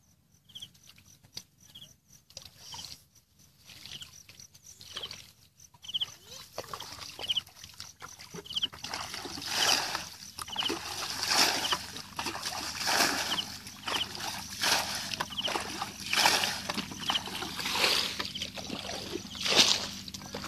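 Water splashing as a plastic bucket is repeatedly scooped through shallow muddy water and emptied, about every second and a half, from about a third of the way in. Before that, a faint high chirp repeats about once a second.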